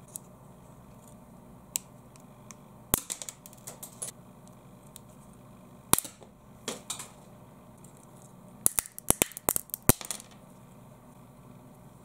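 A clear plastic pen being bent and broken by hand: sharp plastic cracks and snaps, a cluster about three seconds in, one loud snap about six seconds in, then a fast run of cracks near the end.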